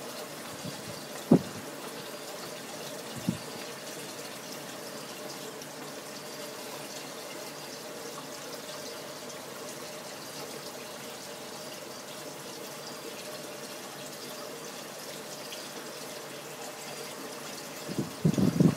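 Steady running water of an aquarium's circulation, typical of a filter or pump return, with a faint steady hum under it. A sharp knock comes about a second in, a smaller one a couple of seconds later, and a cluster of knocks near the end.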